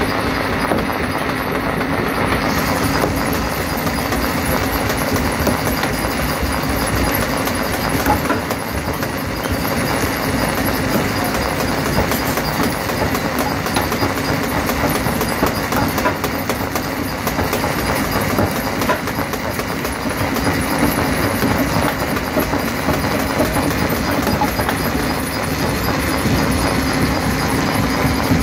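Stone jaw crusher running, with rock clattering and cracking continuously in the jaws over a steady low machine hum.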